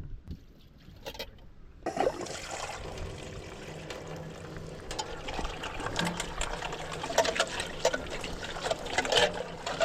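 Water pouring and splashing, starting abruptly about two seconds in, with many small clicks and clinks throughout.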